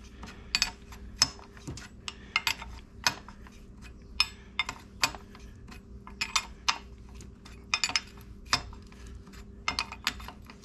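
Sharp metallic clicks and clinks, one to three at a time and irregularly spaced, from a 7/8-inch wrench tightening the locknut on a Harley-Davidson Sportster's primary chain tensioner adjuster.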